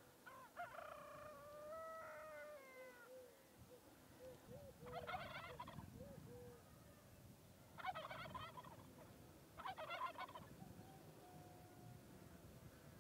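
Faint farm animal calls: a long wavering call in the first few seconds, then three short, rapid chattering calls spaced a couple of seconds apart.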